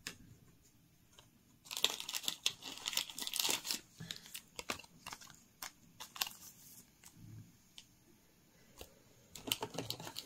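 Thin clear plastic card sleeve crinkling and rustling as a Pokémon card is handled and slid into it: a dense burst of crinkling about two seconds in, then scattered soft rustles and small clicks, picking up again near the end.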